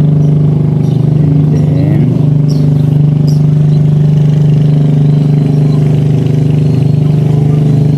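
Engine running steadily at idle, a constant low hum that does not change.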